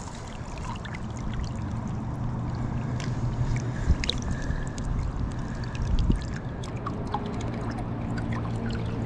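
River water running and lapping, with a steady low rumble and a few small clicks and knocks. The loudest are low thumps about four and six seconds in.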